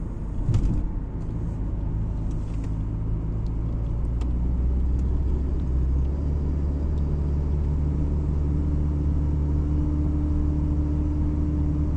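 Car interior noise while driving: a steady low rumble of engine and tyres, with an even engine hum. A short thump about half a second in.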